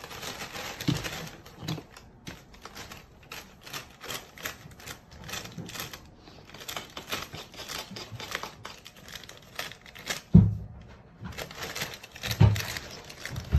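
Thin plastic bag crinkling and rustling in quick, irregular crackles as a cat paws, bites and drags it, with two dull thumps about two seconds apart near the end.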